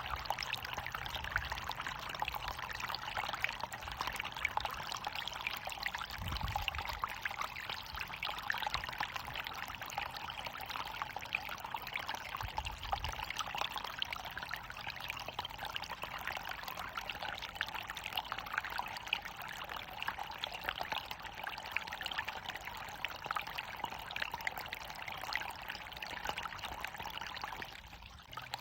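Running water pouring and splashing steadily, as from a small waterfall, with a brief dip in level near the end.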